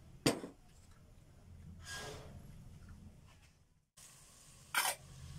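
Aluminium cooking pot knocking against the gas stove's pan support as it is handled: two sharp knocks, one right at the start and one near the end, with a softer scrape between them.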